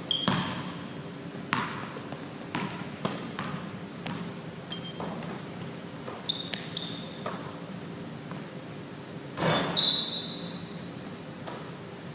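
Basketball bouncing on a gym floor: a scattered series of single thuds, with a few short high squeaks and a louder burst of noise about three-quarters of the way through.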